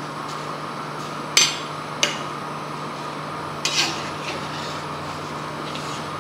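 A metal slotted spoon clinks sharply against a stainless-steel cooking pot a few times, once about a second and a half in, again about half a second later, then twice close together near the middle, as it spreads soaked rice through boiling stock. A steady hum runs underneath.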